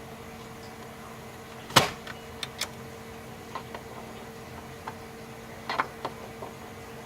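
Light clicks and knocks of an aftermarket NRG short steering hub being handled and centred on the steering column shaft, with one sharper knock about two seconds in, over a faint steady hum.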